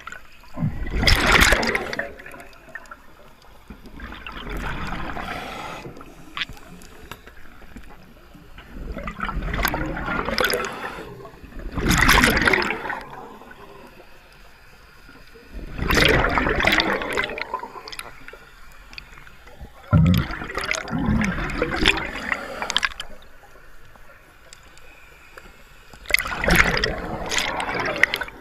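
Scuba diver breathing through a regulator underwater: recurring bursts of bubbling as exhaled air rushes out, each lasting one to three seconds and coming several seconds apart, with quieter stretches between.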